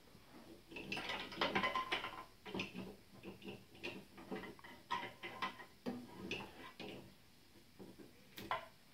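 Wooden toy train cars and track pieces clicking and clacking together as a child handles them, a dense clatter about a second in, then scattered single knocks.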